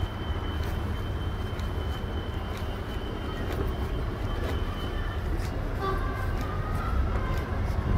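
Low, steady rumble of passing traffic, with a thin, high, steady whine that stops about five seconds in.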